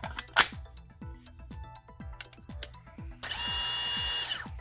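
Ridgid 18V SubCompact brushless drill/driver spinning with no load at a steady speed for about a second near the end, after a sharp click about half a second in.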